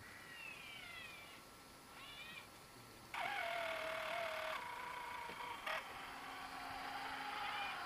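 Electric drive motor of an RC model truck whining under power, its pitch sliding up and down at first. About three seconds in it switches to a louder, steady whine.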